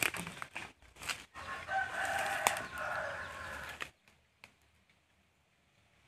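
Crackling of steps through dry undergrowth, then a rooster crows once for about two seconds, ending abruptly.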